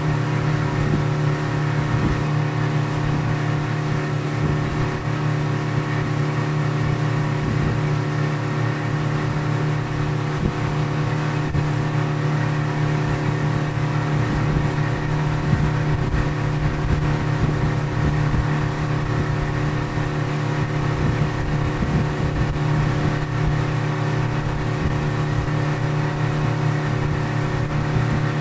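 Tritoon boat's outboard motor running at a steady cruising speed of about twenty miles per hour, an even engine drone that holds its pitch, over an uneven low rumble.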